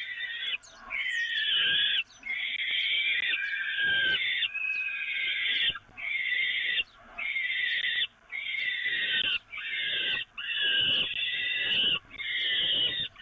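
Peregrine falcon chicks giving loud begging calls one after another, each about a second long with brief gaps, while a parent feeds them.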